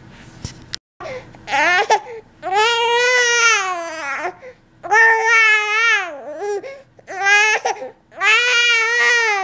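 A 15-week-old baby fussing, a string of about five long, drawn-out cries, each rising and falling in pitch.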